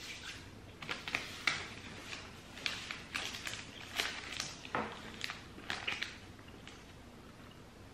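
Scattered crinkles and clicks of a wrapped chocolate bar's packaging being handled on a table, mixed with quiet chewing.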